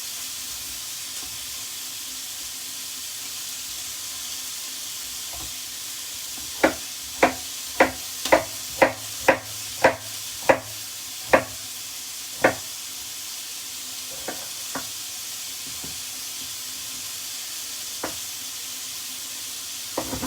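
Chicken breast sizzling steadily in hot oil in a frying pan. From about six seconds in, a knife knocks on a chopping board about ten times, roughly twice a second, as a bell pepper is cut, with a few softer knocks later.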